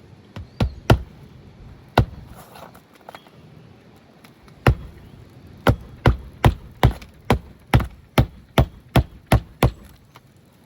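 Hammer driving roofing nails back into lifted asphalt shingles: a few separate blows, then a quick run of about ten strikes at roughly two and a half a second.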